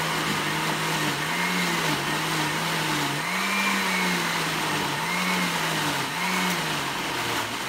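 Countertop blender running, pureeing soaked paper and torn cotton linters in water into paper pulp; the motor's pitch rises and dips several times as it churns.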